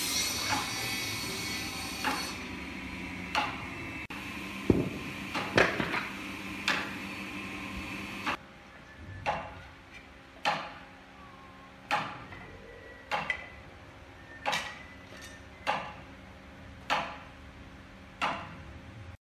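Hammer blows on wood in a woodworking shop, a sharp knock with a short ring about every second or so. A steady shop hum runs under the first eight seconds, then drops away.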